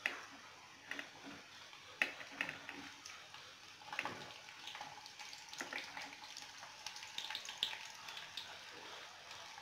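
Hot oil in an aluminium kadai sizzling and crackling as onion pieces and garlic are dropped in, with sharp spits each time more goes into the pan.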